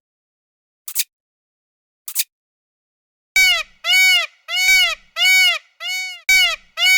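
Two short, sharp clicks, then from about halfway a run of about seven loud bird calls, each rising and falling in pitch, almost two a second.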